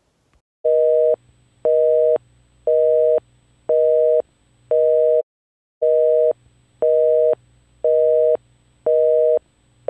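Telephone busy signal: a steady two-note tone beeping half a second on, half a second off, nine times, with one slightly longer pause about halfway.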